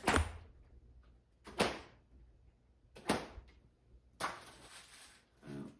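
A 3-foot 16-plait pocket snake whip cracked in a cattleman's crack, thrown seated: three sharp cracks about a second and a half apart, then a longer, noisier rush a little after four seconds. A brief voice sound near the end.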